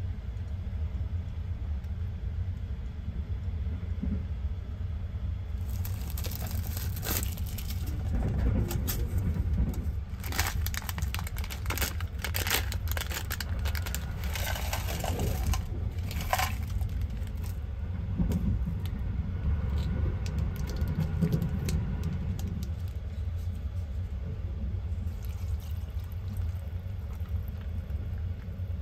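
Steady low rumble of a sleeper train running, heard from inside a compartment. Through the middle come sharp crinkling and tearing sounds of foil and plastic food packets being opened, and near the end liquid is poured into a paper cup.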